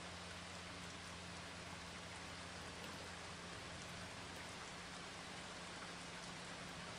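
A steady, even hiss with a faint low hum underneath, unchanging throughout.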